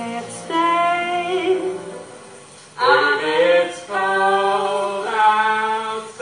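Singing in long held notes, in three phrases with short breaks between them, the first fading out about two seconds in.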